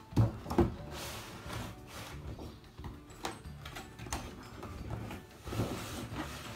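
Cardboard toy box being handled and its inner doll packaging slid out: two sharp knocks just after the start, then rustling and scraping of cardboard with a few scattered clicks.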